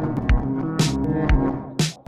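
Background music: an electronic track with a steady beat, a kick drum about twice a second and sharp snare hits.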